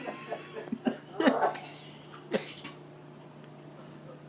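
A man gagging and retching in a few short heaves, mostly in the first two and a half seconds, nauseated by the smell of cooked chicken.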